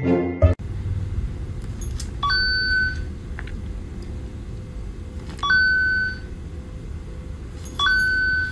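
Three short electronic beeps from a smartphone cat game, a few seconds apart, as a cat paws at the touchscreen. They sound over a steady low rumble of room noise.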